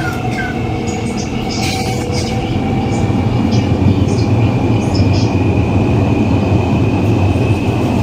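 Siemens-Adtranz Modula (Type A1) metro car running, heard from inside: the GTO-VVVF traction inverter's high whine rises slowly over a steady wheel and running rumble. A lower tone fades out about three seconds in, as the sound grows a little louder.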